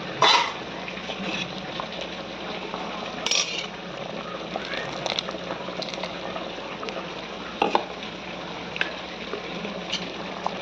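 A spoon stirring chicken curry in a metal pot, clinking and scraping against the pot a few times, the loudest knock right at the start. Under it runs the steady hiss of the curry simmering.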